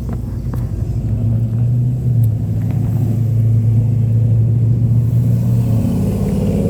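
Car engine running steadily with a deep low note, its pitch rising near the end as it picks up revs.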